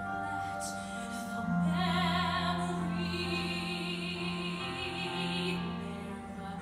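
Female voice singing a slow musical-theatre ballad over instrumental accompaniment. A note comes in about a second and a half in and is held with vibrato for about four seconds, then eases off.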